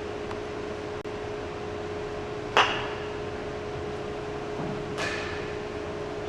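A croquet-style mallet striking a ball with one sharp, ringing knock about two and a half seconds in, followed by a second, fainter knock about five seconds in. A steady low hum runs underneath.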